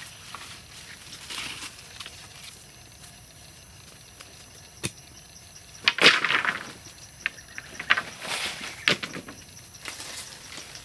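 Sticks and leafy branches being handled by hand: a loud rustling clatter of wood about six seconds in, then more rustling and a few sharp cracks, over a faint steady drone of forest insects.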